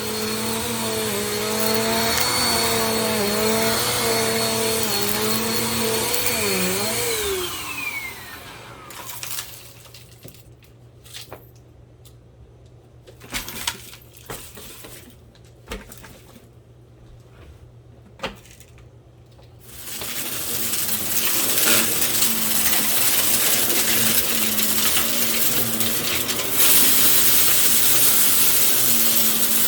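Bissell compact vacuum cleaner running with a steady whine and hum, then switched off: the motor winds down with a falling pitch. During a quieter spell there are a few sharp clicks and knocks. About two thirds of the way in it runs again, and it gets louder near the end.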